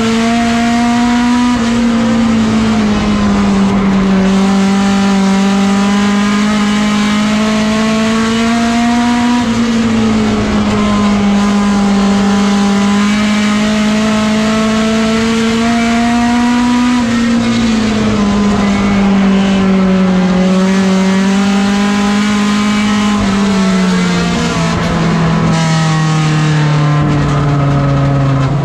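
Front-wheel-drive mini stock race car's engine, heard from inside the cockpit at racing speed. Its pitch climbs slowly and then drops, over and over about every seven to eight seconds. In the last few seconds the note falls and settles lower.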